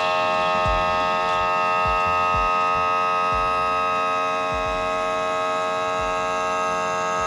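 Power trim and tilt motor of a Honda BF250 outboard running as the engine is lowered, a steady electric whine.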